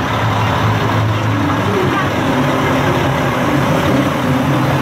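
Diesel engine of the Coca-Cola Christmas truck, an American-style semi tractor, idling with a steady low hum, under the chatter of a crowd.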